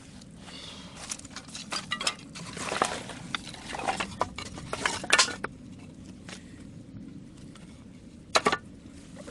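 Irregular clinks and knocks of hard objects being handled, mostly a dense run in the first half, then one louder double knock near the end.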